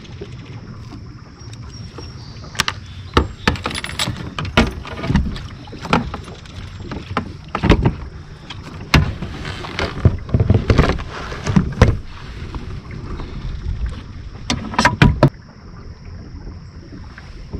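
Repeated knocks and clatter on a fishing kayak, irregular, from about two and a half seconds in until a loud cluster of knocks shortly before the end.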